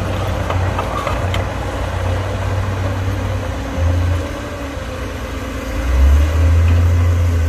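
Diesel engine of a Caterpillar 320D excavator, a six-cylinder Cat C6.4, running under hydraulic load as the boom and bucket work in mud. It drones steadily, eases off a little after about four seconds and grows louder near the end.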